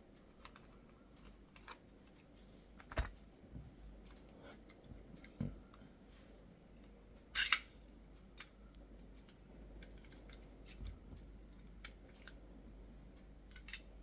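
Scattered light clicks and rattles of a hand staple gun and a strip of pins being handled while the pins are loaded into its magazine, with one sharper click about seven and a half seconds in.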